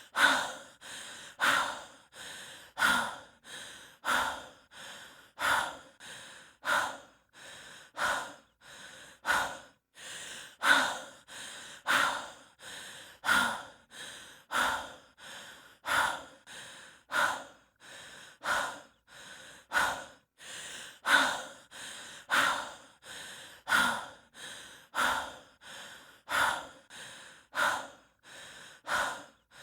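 A person breathing heavily from exertion, as a hiker does: a steady, even rhythm of one full breath about every 1.3 seconds, each cycle a quieter breath followed by a louder one.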